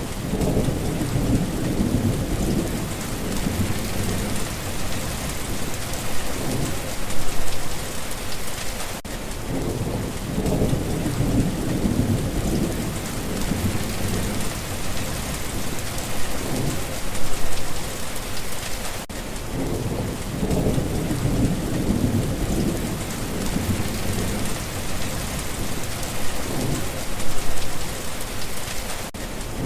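Steady heavy rain with low rolling thunder that swells and fades several times. The same stretch of rain and thunder repeats about every ten seconds, as a looped recording does.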